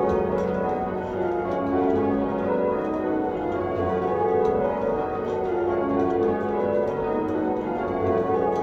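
Church tower bells rung from ropes in the ringing chamber below: an unbroken run of bells striking one after another, their tones overlapping and ringing on.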